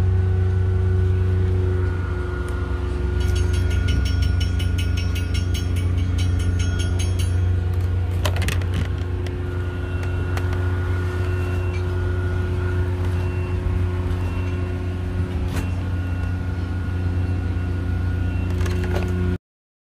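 Steady low hum of an engine or machine running, with a few faint clicks. It cuts off suddenly near the end.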